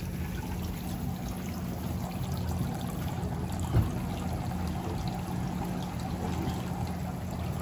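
Steady trickling of running water in a bait shop's minnow tanks, over a low steady hum, with a single knock a little under four seconds in.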